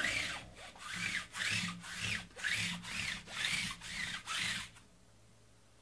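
Rhythmic rubbing or scraping strokes, about three a second, that stop shortly before the end and give way to near silence.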